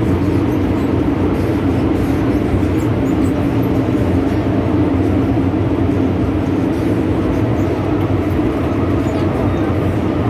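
MTR M-Train running at speed, heard from inside the car: a steady rumble of wheels on track with a low hum, even throughout.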